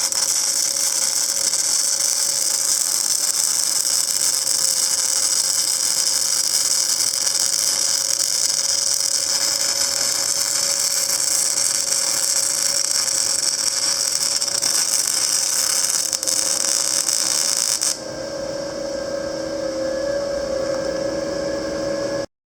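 Panasonic YD-350GR3 semi-automatic (MIG/CO2) welder arc welding: a loud steady hiss that stops suddenly about 18 seconds in, leaving a steady hum with no arc.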